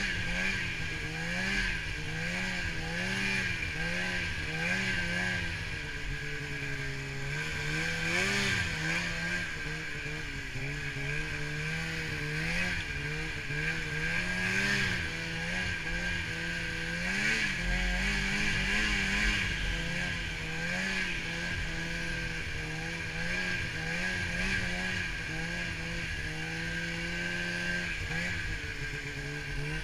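Polaris snowmobile engine running as the sled crosses snow, its note rising and falling every second or two as the throttle is worked, with a few steadier stretches where it holds one pitch.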